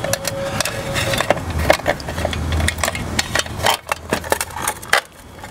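Electrical wires being fed and pushed through the drilled holes into a GE 40-amp outdoor smart switch box, with the box being worked by hand: a dense run of scrapes, clicks and knocks.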